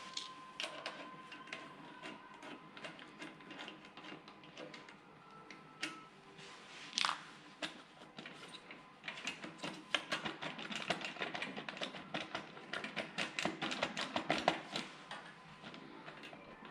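Sharp clicks and taps of hand work on a snowblower. They come sparsely at first, then about nine seconds in become a rapid, irregular run of clicks that lasts several seconds.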